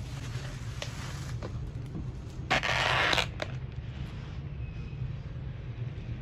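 Thin plastic bag rustling as it is pulled off a takeaway food container, with one loud crinkle lasting under a second about two and a half seconds in, over a steady low hum.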